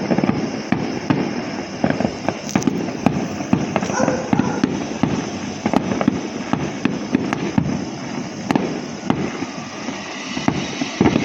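Fireworks going off without pause: a dense run of rapid bangs, pops and crackles.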